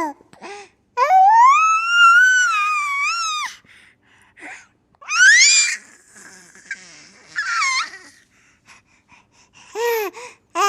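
Baby vocalizing in very high-pitched squeals and cries: one long, rising, wailing squeal about a second in, then several shorter squeals.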